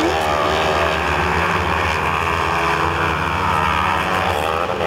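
Several 500-class kartcross cars racing at a distance, their engines revving up and down over a steady low drone.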